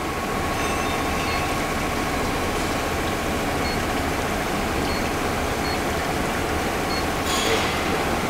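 Steady mechanical running noise from a wire-mesh weaving machine's motor, with a faint hum. Faint short beeps come every second or so as the touchscreen keypad is pressed.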